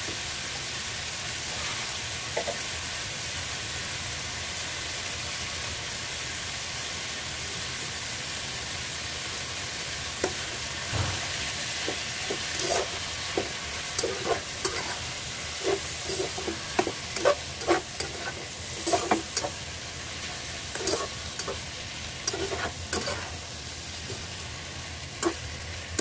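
Chopped beef innards sautéing in a pan with a steady sizzle. From about ten seconds in, a stirring utensil knocks and scrapes against the pan in irregular strokes.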